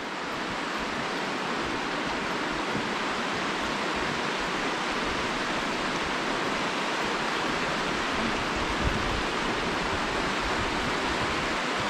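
Stream water rushing steadily over stones, a constant even noise.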